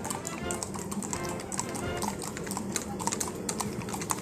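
Music with a dense run of sharp, irregular clicks over it.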